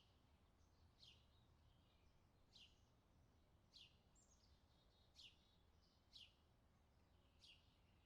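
Faint bird calls: a short, high chirp falling in pitch, repeated about six or seven times, with a few softer twitters between, over a steady low background rumble.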